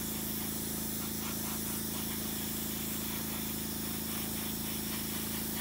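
Iwata HP-CS airbrush hissing steadily as it sprays alcohol-thinned paint at under 10 PSI. A low steady hum runs underneath.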